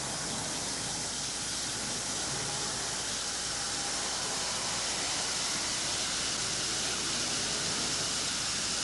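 Effervescent tablet fizzing in a glass of water: a steady hiss of bubbles that grows slightly louder toward the end.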